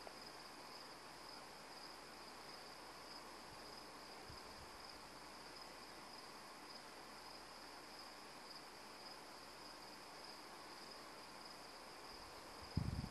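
Faint, steady chorus of night insects: a constant high-pitched trill. A brief low thump near the end.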